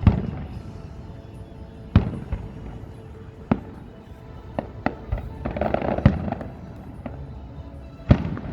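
Aerial fireworks bursting: a series of sharp booms at irregular intervals, several in quick succession about five to six seconds in with a crackle between them, and another boom near the end.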